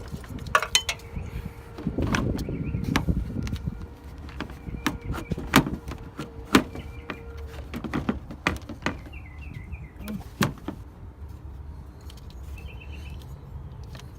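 Irregular plastic clicks, snaps and knocks as a 2007 Ford Focus headlight assembly and grille are fitted back into place and pressed home. Birds chirp faintly in the second half.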